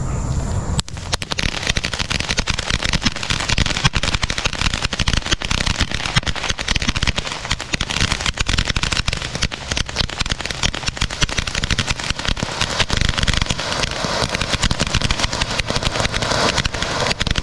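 GLK Fireworks 'Star Destroyer' ground fountain spraying sparks with a dense, continuous crackle. It starts suddenly about a second in.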